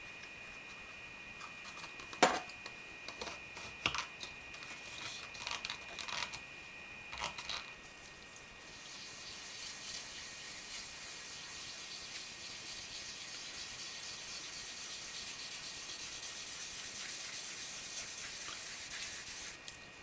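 Wool dauber rubbed back and forth over leather, spreading black leather dye in a steady scratchy hiss that starts about a third of the way in. Before that come scattered light clicks and taps from handling the dye jar and dauber, and a faint steady high whine runs throughout.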